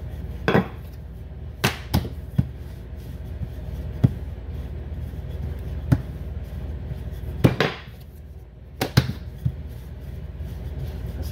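Wooden rolling pin rolled back and forth over puff pastry dough on a countertop, giving about ten irregular knocks and taps of wood on the counter, over a faint low hum.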